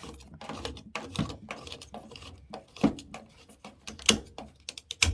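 Plastic clicks and knocks of a Samsung washing machine's drain filter being fitted back into its housing, with a few sharper knocks in the second half.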